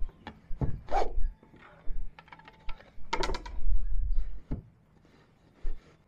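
Wooden sticks of a backstrap loom knocking and thudding irregularly as the weaver beats the weft and shifts the sheds, with some rubbing of the warp threads. The loudest knocks come about a second in and again from about three to four and a half seconds in.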